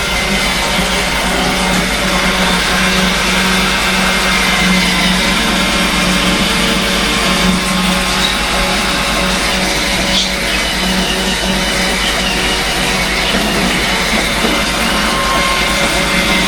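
Background music with guitar, over a steady low hum.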